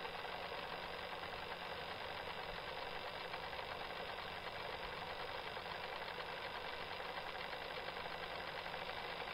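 A sanding sponge rubbing continuously against a small plastic model-kit part, a steady scratchy rubbing with no pauses.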